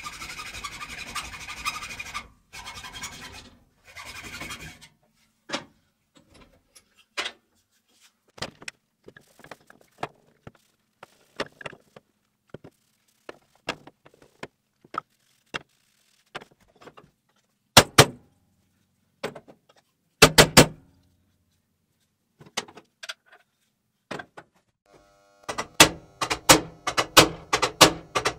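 A hacksaw rasps through the end of a wooden hammer handle. Then come scattered clicks and knocks of tools being handled on a workbench, with two louder clusters of knocks midway. Near the end a hammer strikes rapidly on the handle top in a forged steel hammer head, seating it, and each blow rings.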